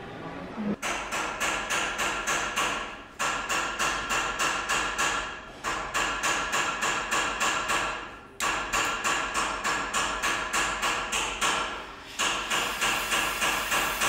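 Metal being struck with a hammer in quick, even blows, about three a second, each strike ringing, in runs of a few seconds with short pauses between. Near the end a hissing gas torch flame comes in under the blows.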